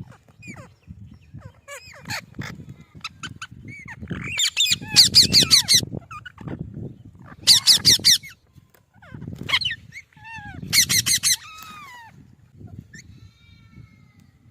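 Parrot calling: three loud bursts of rapid, harsh screeches about a second each, with shorter chirps and gliding whistles in between, over a low rumble.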